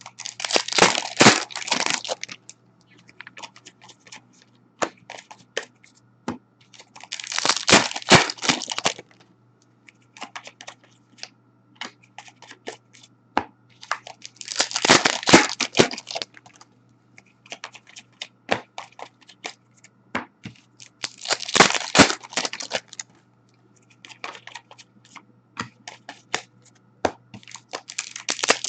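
Wrappers of Upper Deck Series 1 hockey card packs torn open one after another: a crinkling rip about every seven seconds, four in a row with a fifth starting at the end. Between the rips, cards click and rustle as they are handled.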